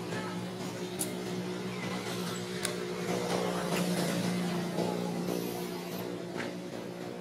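A motor engine humming steadily, growing louder toward the middle and easing off near the end, with a few faint clicks.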